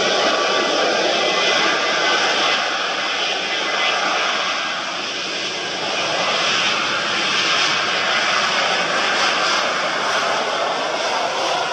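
Boeing 737 airliner rolling along the runway, its jet engines making a loud, steady rush with a faint whine.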